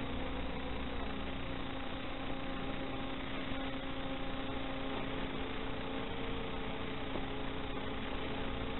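Steady electrical hum and hiss on the audio of an analog FPV video link, as recorded by the goggles' DVR, with a faint tone wavering up and down in the second half.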